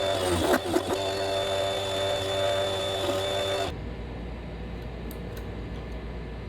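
Vevor HS001 mini wood lathe running with a steady motor whine, with a couple of brief scrapes or knocks about half a second in, likely from the turning tool on the workpiece. The whine cuts off suddenly about two-thirds of the way through, leaving a low steady hum.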